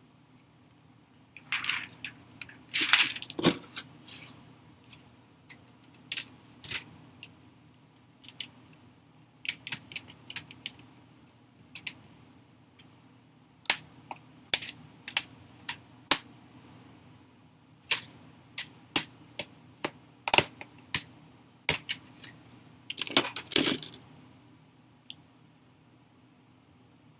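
Small hard plastic and metal parts and hand tools being handled during a laptop repair: scattered sharp clicks and light knocks, with short clattering runs about 3 seconds in and again near the end. A faint low hum runs underneath.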